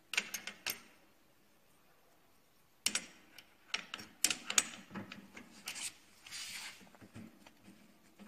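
Clicks and rubbing from an air-bike pedal and its foot strap being handled and adjusted by hand. There is a short run of sharp clicks at the start, a quiet pause of about two seconds, then several seconds of clicking and scraping.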